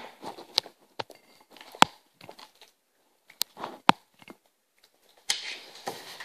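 Scattered sharp crunches and clicks of potato chips being taken from a bowl and bitten, with short quiet gaps between them and a denser rustle near the end.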